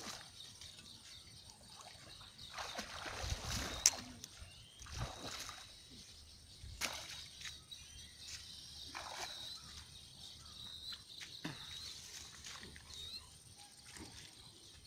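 Pond water sloshing and splashing in a string of separate swishes as a man wades neck-deep through it, with one sharp click about four seconds in.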